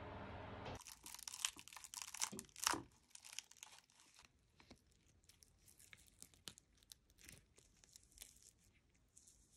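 Dried asparagus-peel-and-starch discs crackling and crinkling as gloved hands pop them out of a silicone mould and handle them. A cluster of sharp crackles comes in the first couple of seconds, followed by fainter, scattered crinkles.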